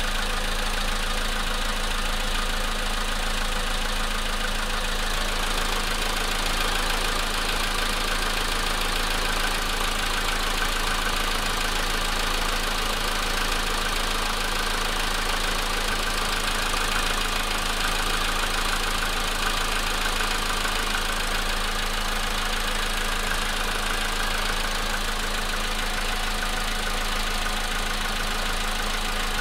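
Volkswagen Polo sedan engine running steadily while cold, with a knocking from the engine. This is the cold-engine knock that the owner says is getting progressively worse.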